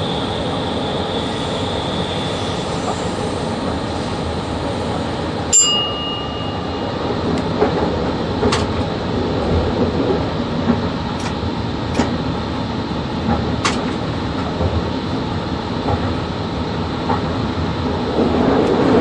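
Cab noise of a VL80 electric locomotive running with a freight train. A high steady tone fades out near the start. About five and a half seconds in there is one sharp click with a brief ring, followed by several lighter clicks.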